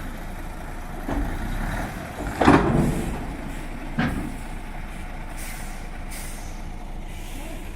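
Diesel engine of a compact earthmoving machine running steadily, with heavy clunks about a second in, a loud thump at about two and a half seconds, and another clunk at about four seconds.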